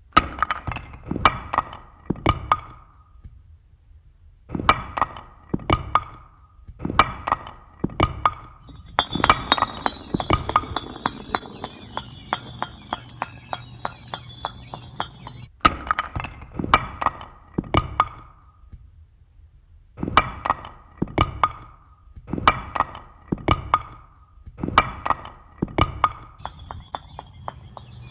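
Hard blocks knocked together in quick clusters of four or five sharp clacks, each with a short ring. From about nine seconds in, a dense clattering joins high chimes ringing. The chimes stop abruptly around fifteen seconds, and the clusters of knocks start again.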